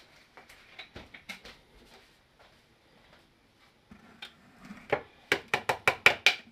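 Faint clicks of a plastic cap being taken off a vegetable oil bottle and set on a kitchen counter. Then, about five seconds in, a quick run of about seven sharp clicks, the loudest part, as a set of plastic measuring spoons is picked up and the spoons knock together.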